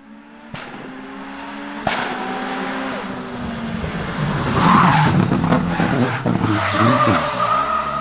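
Turbocharged VW Golf TFSI-R hillclimb race car accelerating hard up through the gears, with two sharp upshifts about half a second and two seconds in. It grows louder as it comes close, loudest around the middle of the run.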